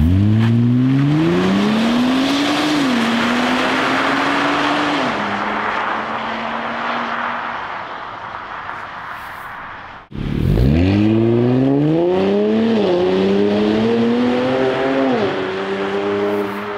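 Infiniti Q60S 3.0 twin-turbo V6 accelerating hard through a custom valved 63 mm exhaust, revving up with two upshifts and fading as the car drives off, the first run in the exhaust's quiet mode. After a cut about ten seconds in, a second hard acceleration rises through two more upshifts.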